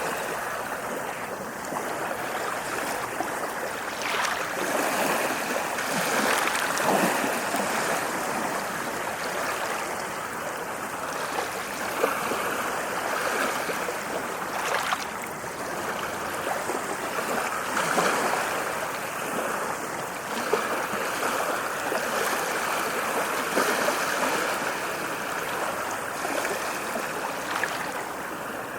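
Ocean waves washing onto a shore: a steady rush of surf that swells and ebbs every few seconds, with brief sharper splashes as waves break.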